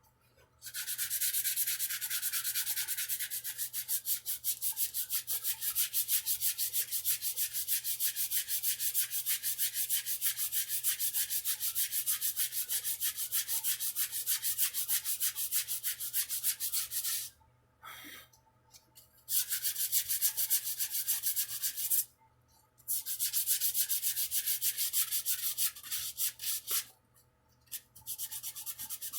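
Sandpaper rubbed rapidly back and forth over a wooden guitar neck, a fast even scratching that stops briefly three times in the second half.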